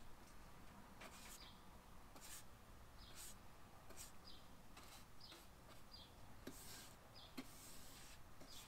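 Faint, near-silent strokes of a small paintbrush on wooden trim: a string of short, soft swishes as watered-down paint is brushed out, with a few faint high chirps between them.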